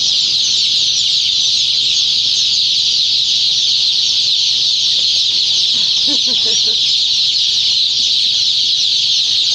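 Some 2,500 day-old chicks peeping all at once in a brooder, a dense, continuous high-pitched chorus with no gaps.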